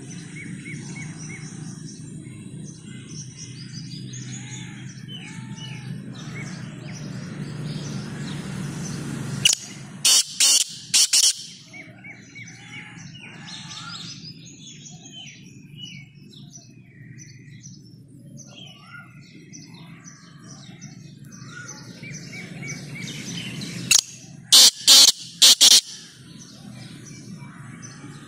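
Black francolin calling twice, each call a very loud, harsh run of four or five sharp notes, the two calls about fourteen seconds apart. Smaller birds chirp faintly in the background, over a low rumble that drops away at the first call.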